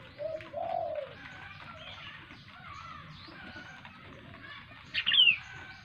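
Downy hawk nestling giving a loud, shrill call about five seconds in: a sharp note that slides downward. A short, low hooting tone comes near the start, and faint bird chirps sound in the background.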